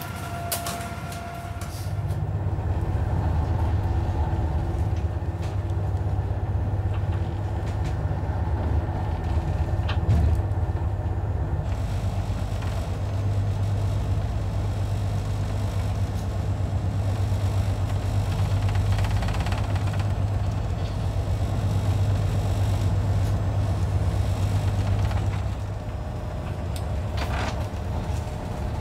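Steady low drone of a fishing vessel's engine and machinery running at sea, easing off a little near the end.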